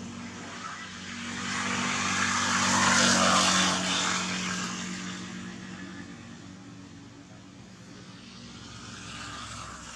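An engine passes by, swelling to its loudest about three seconds in and then slowly fading away.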